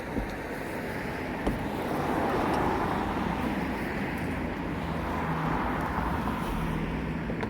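A road vehicle passing by: tyre and engine noise swells up, peaks after a couple of seconds and slowly fades. A single sharp click comes about a second and a half in.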